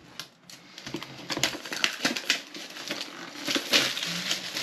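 Rustling, crinkling and tapping of packaging as a cardboard iPad Mini box is handled and opened, in a run of short clicks and rustles that grows busier partway through.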